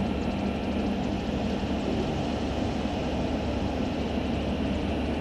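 Aerial ladder truck's engine and hydraulic drive running with a steady low drone while the raised ladder swings, heard from the top of the ladder.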